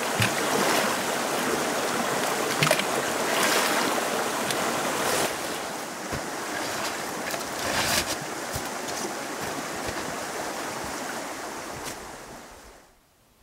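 Shallow rocky creek rushing, with short splashes as someone wades through it. The water sound fades out near the end.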